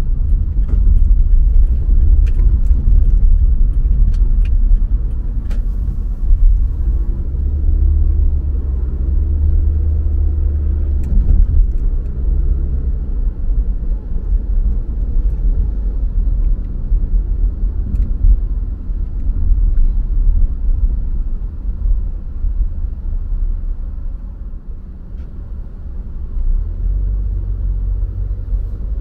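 Car driving through city streets: a steady low rumble of road and engine noise, easing off for a few seconds near the end.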